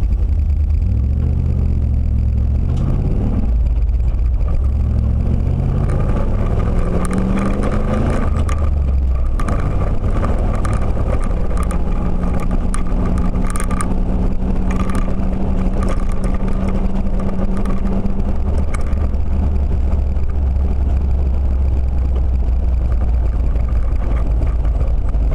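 A car driving, with a low engine and road rumble. The engine note climbs in steps as the car accelerates through the gears, then holds a steady drone for several seconds before it fades back into the rumble.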